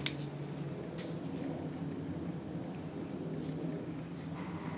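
Quiet handling of a steel hydraulic cylinder gland in the hands while the inner seal is pressed in with the fingers: a sharp click right at the start and a fainter one about a second in. Under it, a steady low background hum and a faint high steady tone.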